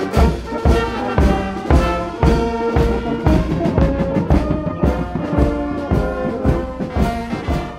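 Carnival street band of brass and drums playing while marching: trumpets and a tuba carry the tune over a steady bass-drum beat of about two thumps a second. The sound fades out near the end.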